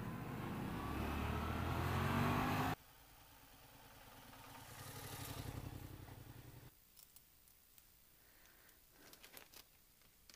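Yamaha FZ motorcycle engine and wind noise while riding, growing louder, then cutting off sharply about a quarter of the way in. A quieter engine running with an even low pulse follows, swelling and fading. The rest is near silence with a few faint clicks and rustles.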